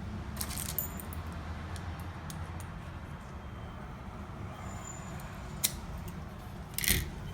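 Small metallic clicks and clinks of mortise lock cylinders and keys being handled on the bench: a few taps early on, a sharp click about five and a half seconds in and a louder clink near the end, over a steady low hum.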